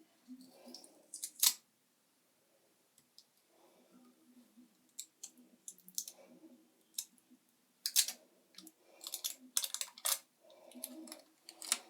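Irregular sharp clicks and snaps of a portable charger's casing and parts being pried apart by hand, a few louder cracks among lighter ticks.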